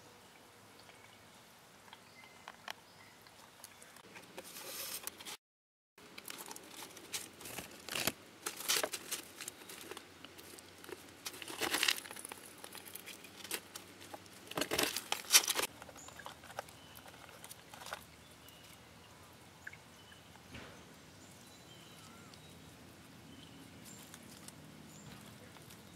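Chipmunk handling peanuts in their shells on gravel: irregular crackling and crunching of shells and rustling, in bursts through the middle, loudest twice. A small stream trickles softly before and after.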